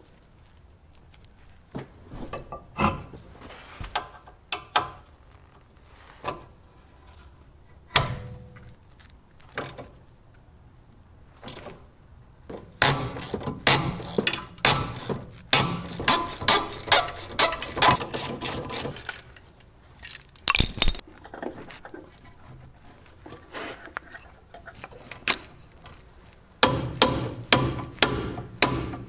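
Hand tools working on a car's front suspension: scattered metal clicks and knocks, then about six seconds of quick ratchet-wrench clicking, a short loud clatter, and another run of ratchet clicks near the end.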